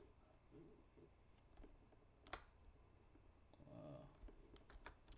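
Near silence with a few scattered sharp clicks of a computer mouse and keyboard, the loudest a little over two seconds in.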